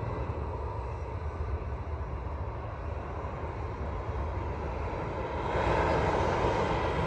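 Boeing 757-200's twin Pratt & Whitney PW2037 turbofans at takeoff thrust, a steady jet roar with a deep rumble as the airliner rotates and lifts off. The roar grows louder about five and a half seconds in.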